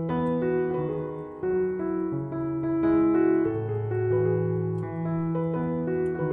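Background piano music: a slow run of held notes and chords.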